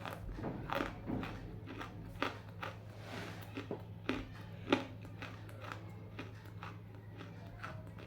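Half-roasted edible clay bitten and chewed close to the microphone: a run of sharp crunches and snaps, the loudest a little before five seconds in, over a steady low hum.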